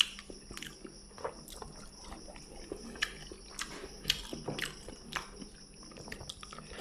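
Eating rice and fish curry by hand: quiet chewing and mouth smacks, and soft squishing as fingers mix the rice on the plate, heard as scattered short clicks every half second or so.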